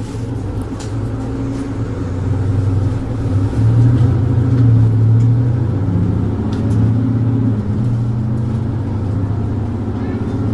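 Mercedes-Benz Citaro 2G bus's OM470LA inline-six diesel engine running under load, heard on board: a loud, low drone that builds over the first four seconds and then eases slightly.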